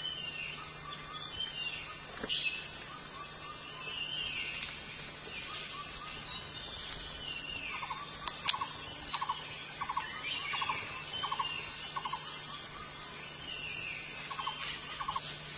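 Forest birds calling over a steady, high-pitched insect drone: repeated falling whistled calls, with a run of short clipped notes through the middle. A single sharp click sounds about halfway through.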